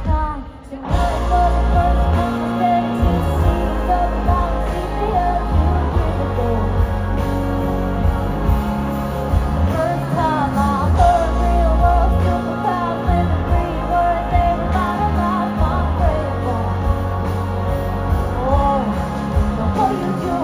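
Live band music heard from within the crowd: drums and heavy bass under guitars, with a sung melody line. The sound drops out briefly in the first second.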